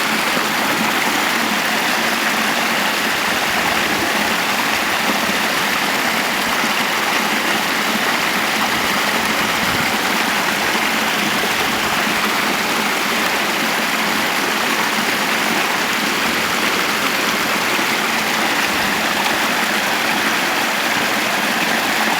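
Stream water flowing steadily beneath frozen ice, a constant rushing sound.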